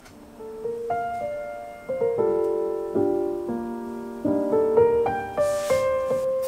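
Background piano music starting up: a gentle melody of single notes over soft chords. There is a brief hiss about five seconds in.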